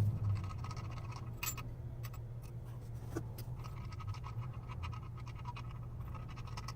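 Scattered light clicks and scratches of hand tools working on a cylinder head's valve springs, over a steady low hum.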